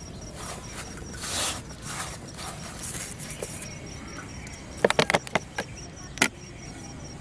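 Hands squeezing and tossing a crumbly bait mix in a steel bowl, soft rustling and squishing. About five seconds in comes a quick run of sharp plastic clicks, and one more a second later, as a plastic sauce bottle's cap is twisted off.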